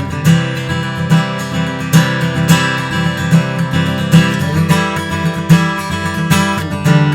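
Gibson J-200 Koa jumbo acoustic guitar strummed in a steady rhythm, with full chords ringing between strokes and a chord change about halfway through.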